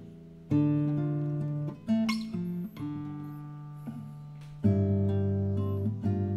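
Classical guitar played fingerstyle: single plucked notes and chords rung out slowly over sustained bass notes, with a loud chord struck near five seconds in.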